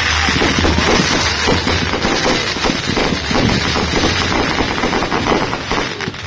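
Fireworks crackling in a dense, rapid barrage of many small bangs.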